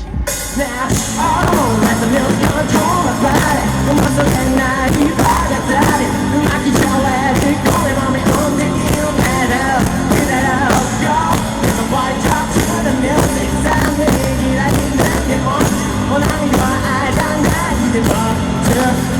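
Live rock band playing loudly: drums, bass and guitars with a sung melody over them.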